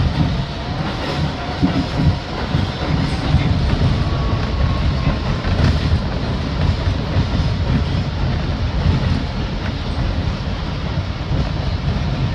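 Bombardier R62A subway car running along the track: a steady low rumble of wheels on rail, with scattered clicks over rail joints and a faint motor tone.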